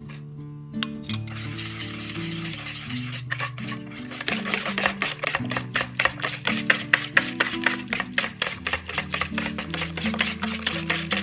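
Wire whisk beating sweet martabak batter in a mixing bowl, quick rhythmic scraping strokes that get louder and busier about four seconds in, as sugar is whisked in until it dissolves. Background music plays underneath.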